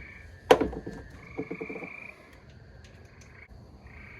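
A single sharp click about half a second in, followed about a second later by a short rapid rattle of pulses. Behind these, insects buzz in repeated bursts of a steady high tone.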